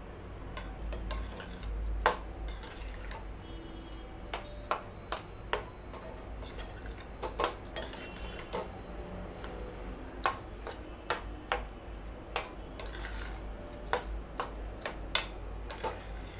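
A metal spatula stirs moist flattened rice and jaggery in a stainless steel pan, scraping and clinking against the pan's sides in an irregular run of clicks, about one or two a second. The loudest knock comes about two seconds in.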